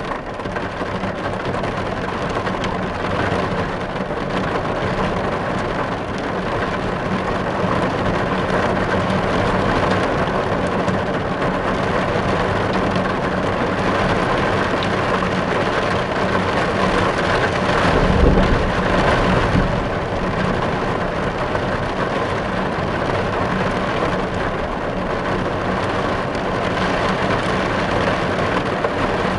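Steady rain falling on a roof, with a brief low rumble about two-thirds of the way through.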